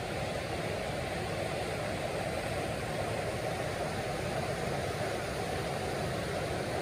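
Diesel railcar (first-generation DMU) engine idling, a steady, unchanging sound.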